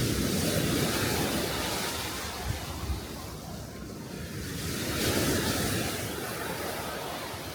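Small sea waves washing onto the shore, swelling and fading twice about five seconds apart.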